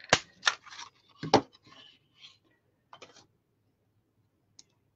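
Sharp clicks and paper rustling from a small butterfly clip punch being pressed through a strip of paper, a few strokes in the first second and a half, the loudest about a second in.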